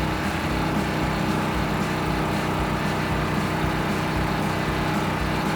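Engine idling steadily, a continuous even hum with a low rumble.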